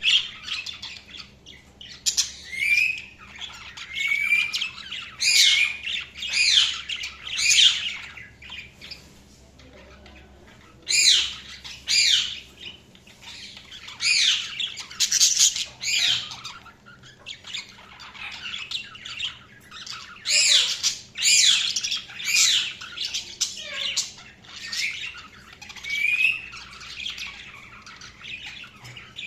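Budgerigars chirping and squawking in clusters of short, quickly sliding calls, with brief quieter gaps between clusters.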